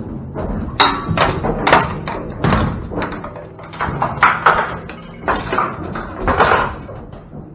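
Clanks and rattles of a steel chain and latch being fastened on a perforated aluminium cattle-trailer gate, with about ten separate metal knocks and thumps, some ringing briefly.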